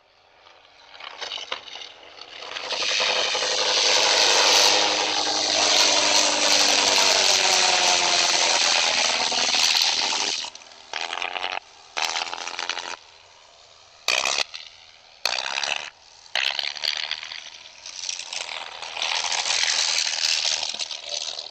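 Propeller aircraft engine sound effect: a loud, buzzy drone that swells over about three seconds and holds. After about ten seconds it is cut into short, abruptly starting and stopping pieces, then swells again near the end.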